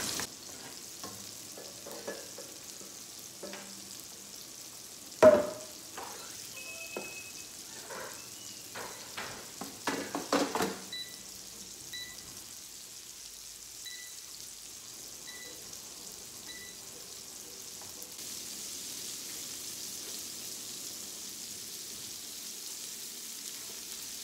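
Beef and bacon burger patties sizzling steadily on a Presto electric griddle. Knocks and clatter come over it in the first half, the loudest about five seconds in, then a run of about seven short electronic beeps as the air fryer's touch controls are set.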